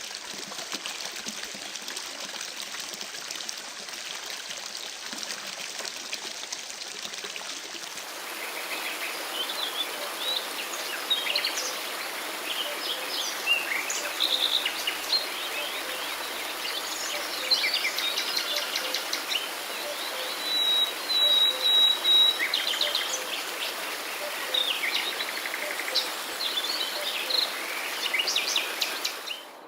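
Steady rushing water of a stream, then about eight seconds in an abrupt change to many songbirds singing, with quick chirps, trills and one held whistle, over a soft steady rush in the background.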